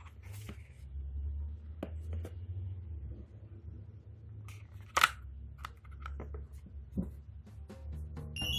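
Scattered clicks and taps from handling an iPad Pro box and its packaging, with one sharp click about five seconds in, over a low steady hum.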